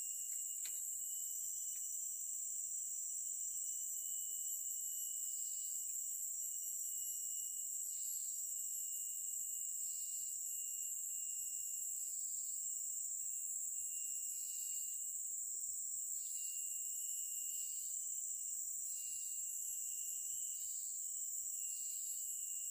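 Steady high-pitched chorus of forest insects, with a second insect call pulsing over it roughly once a second, the pulses coming quicker toward the end.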